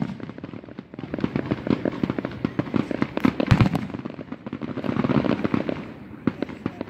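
Aerial fireworks crackling: a dense run of rapid sharp pops, heaviest around the middle and thinning out near the end.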